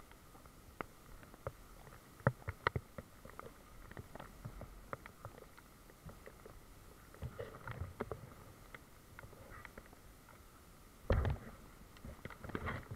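Handling noise from a camera carried through wet undergrowth: scattered taps and knocks, with a heavier bump about eleven seconds in.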